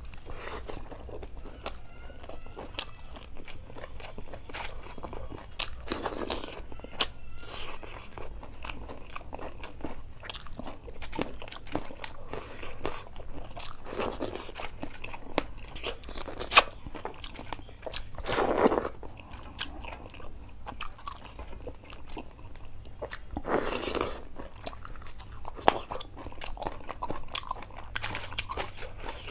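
Close-up eating sounds of a person eating chicken curry by hand: biting, chewing and crunching, with many small clicks and a few louder, longer mouth sounds.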